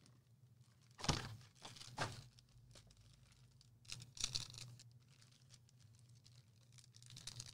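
Foil trading-card packs being torn open and crinkled: faint short rips about one, two and four seconds in.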